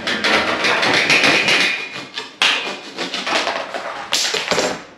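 Plastic push-fit water pipe being handled, knocking and scraping against a stainless steel sink in a dense clatter, with a short sharp knock near the end.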